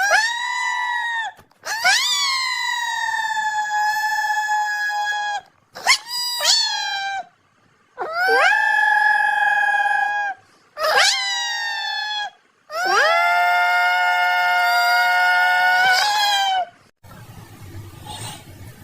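A dog howling: about six long, steady howls, each starting with a quick rise in pitch and held for one to four seconds, with short breaks between them. The howls stop about 17 seconds in.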